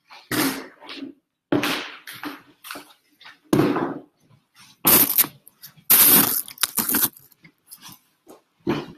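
Handling noise close to the microphone: a series of loud, irregular rustles and knocks, the loudest about halfway through.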